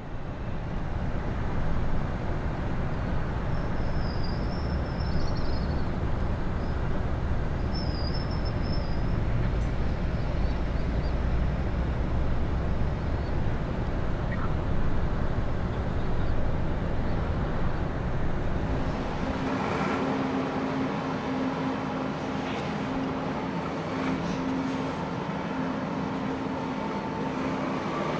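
Steady low rumble of heavy machinery at a canal lock, with the electric towing locomotives at work alongside a ship. About two-thirds of the way through, the rumble gives way to a steady pitched motor drone.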